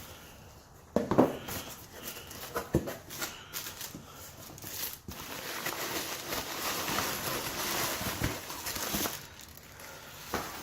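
Handling noises: a sharp knock about a second in, a few lighter clicks, then several seconds of crinkling and rustling.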